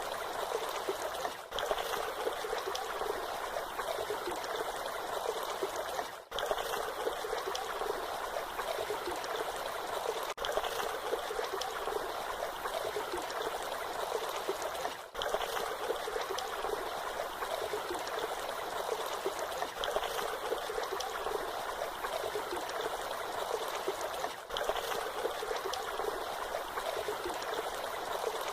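Waterfall water splashing and rushing steadily, a bright, continuous hiss with little low rumble. It is broken by a few very brief dips in level.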